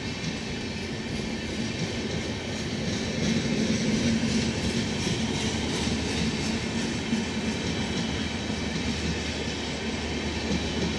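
Janshatabdi Express passenger coaches rolling past at speed: a steady rumble of steel wheels on rail with a repeated clickety-clack of wheels over rail joints, loudest a few seconds in.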